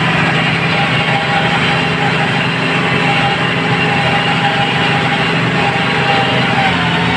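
Small farm tractor's engine running steadily under load while plowing a field, with a steady high whine over the engine note.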